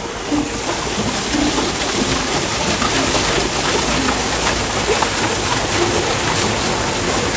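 Water from a small rock waterfall pouring and splashing onto stone: a steady, even rush.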